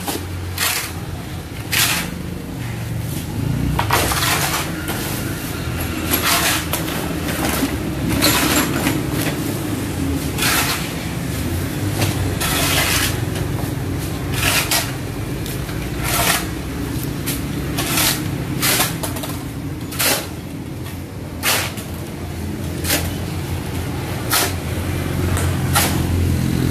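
Mason's trowel working mortar: irregular scrapes and knocks every second or two, over a steady low hum.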